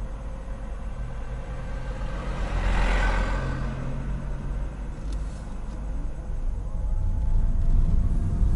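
Car running, heard from inside the cabin: a steady low rumble while stopped in traffic, with a swell of noise about three seconds in, then the engine and road noise picking up near the end as the car pulls away.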